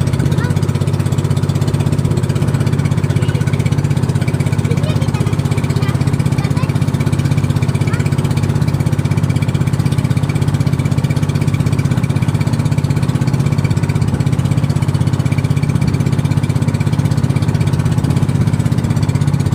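Engine of a motorised bangka (outrigger boat) running steadily under way, heard from on board: a loud, unchanging low drone.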